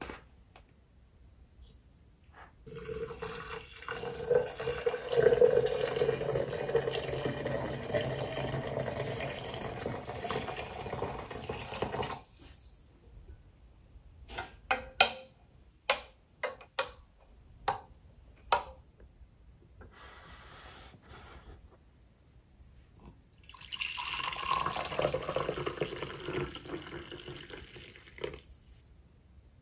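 Water is poured into a glass French press for about ten seconds. Then a spoon clinks sharply against the glass around eight times. Near the end, brewed coffee is poured from the French press into a glass mug for several seconds.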